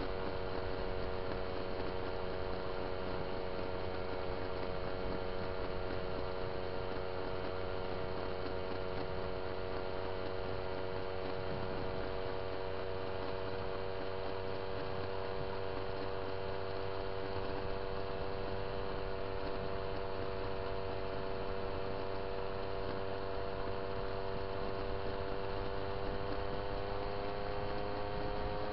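Moped's small two-stroke engine running steadily at cruising speed, a constant buzzing drone whose pitch sinks slowly.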